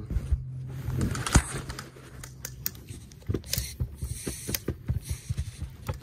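Phone handling noise: rustling against clothing with many scattered clicks and knocks, over a steady low hum.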